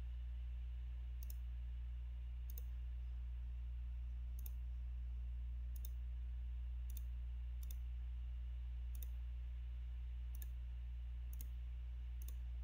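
Computer mouse clicks, about ten, unevenly spaced, over a steady low hum.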